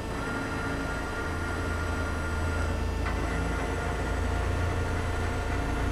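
Daewoo Pro-Turn 60/2500 CNC lathe running with a steady low hum, with a thin high whine from the axis drive as the carriage is jogged by joystick; the whine shifts with a click about three seconds in.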